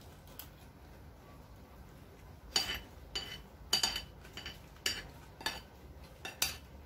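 Cutlery clinking against a dish while eating: quiet at first, then about eight sharp, ringing clinks from about two and a half seconds in.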